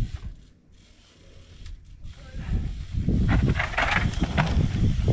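Mountain bike coasting down a steep slickrock roller: the rear freehub clicking and the tyres rolling over rock. It gets much louder about three seconds in.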